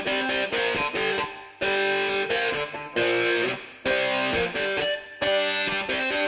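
Background music: distorted electric guitar playing chords and riffs with a driving rhythm.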